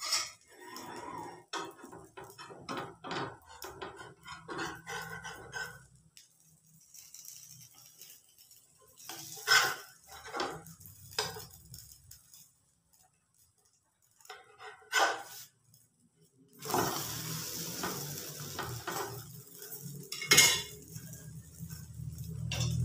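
Clinks and knocks of a frying pan and its glass lid as a pancake is cooked and turned over by hand. A few sharper knocks come about halfway through, and a steady hiss, likely sizzling from the pan, sets in for the last few seconds.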